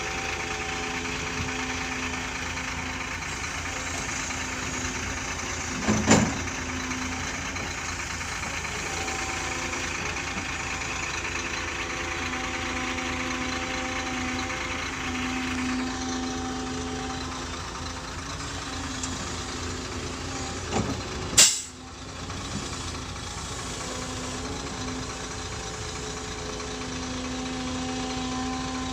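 An engine running steadily at idle, with two loud sharp knocks, one about six seconds in and one about twenty-one seconds in.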